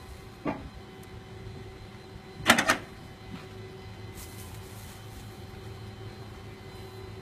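Vehicle engine idling with a steady hum, with a light click about half a second in and a loud double clunk about two and a half seconds in.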